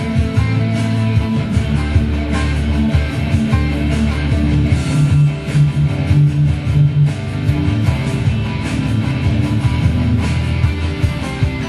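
Electric guitar being played, a continuous run of picked notes and riffs sitting mostly on the low strings.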